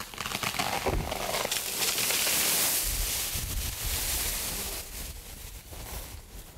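A large tree falling after its trunk has been shot through: leaves and branches crashing and rustling, with low thuds about a second in and again near three seconds as it comes down, easing off near the end.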